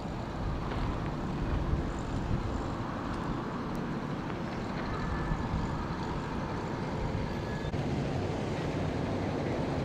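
Steady low rumble of vehicle engines and road traffic, with no distinct events.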